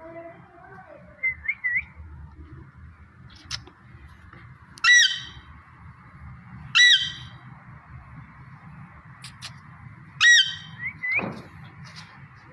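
Pet parrot squawking: three loud, harsh calls a couple of seconds apart, with a few softer short chirps between them.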